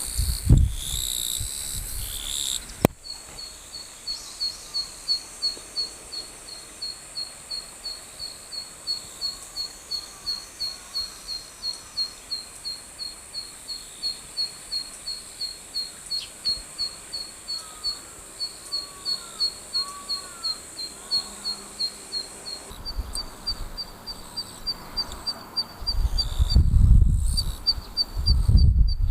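Zitting cisticola singing: a long, even series of sharp, high single notes, about two to three a second. A loud burst of noise covers the first few seconds, and low wind rumble on the microphone comes in near the end.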